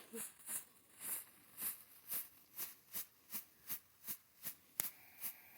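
Strobe firework popping faintly and evenly, about two to three pops a second, the pace quickening slightly, with one sharper crack near the end.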